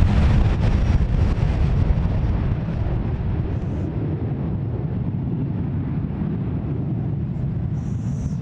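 Boeing 727-200's three rear-mounted JT8D turbofans at takeoff thrust, heard from behind as the jet rolls away down the runway. It is a deep rumble that fades over the first couple of seconds, then holds steady, with blast and wind buffeting the microphone.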